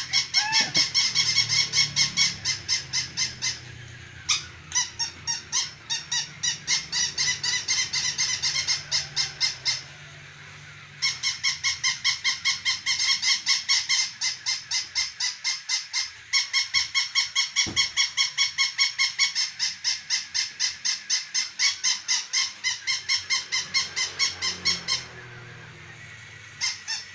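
Battery-operated plush toy dog yapping electronically: rapid, evenly repeated high squeaky barks, several a second, in long runs that pause briefly about ten seconds in and again near the end.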